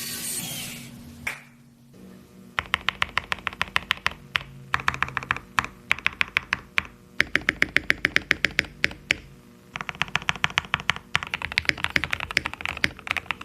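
Typing on a mechanical keyboard fitted with lubed and filmed Gateron Oil King linear switches: runs of quick keystrokes with short pauses between them. A hiss comes first, before the typing starts about two and a half seconds in.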